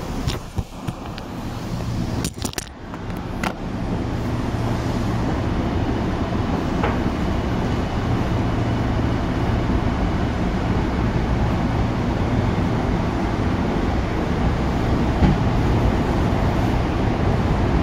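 Tokyu 8500 series electric train heard from inside the car: a few sharp clunks in the first few seconds, then steady running noise with a low hum, growing gradually louder as the train gets under way.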